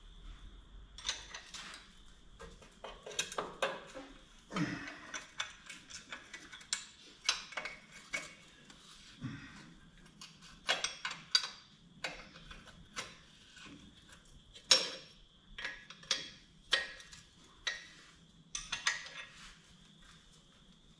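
Ratchet wrench clicking and metal tools clinking against bolts, in irregular short runs, as exhaust manifold bolts are loosened.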